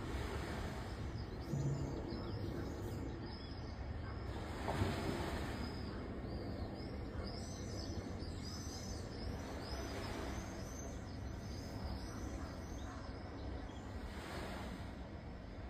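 Small birds chirping in quick, scattered calls over a steady low rumble, with one brief louder swell of noise about five seconds in.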